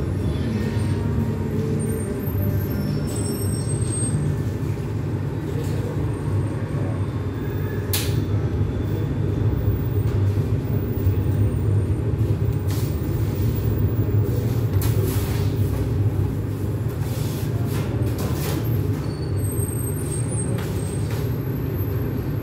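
A steady low machine rumble from kitchen equipment runs throughout, with a few faint light clicks and rustles on top.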